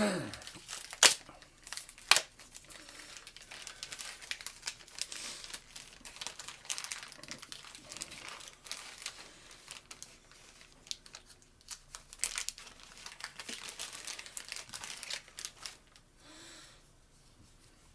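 Packaging being crinkled and torn open by hand, with two sharp snaps about a second apart near the start, then steady crinkling rustle that dies away near the end.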